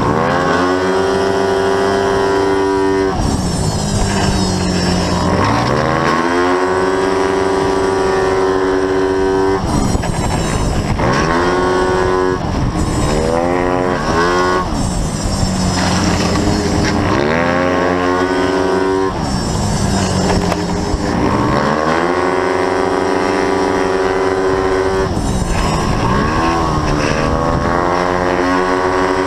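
Racing scooter's single-cylinder engine heard onboard at race pace: its note climbs and holds a steady high pitch along each straight, then drops away as it slows for a corner and climbs again, over and over.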